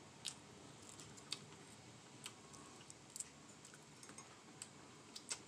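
Faint eating sounds: a handful of short, sharp mouth clicks and smacks from chewing, spread irregularly over a quiet room background.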